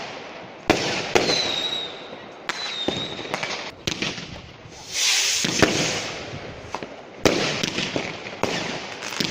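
Consumer New Year's Eve fireworks going off: sharp bangs every second or two, each trailing into crackling hiss, with short high whistles that fall slightly in pitch. A loud hissing swell about five seconds in.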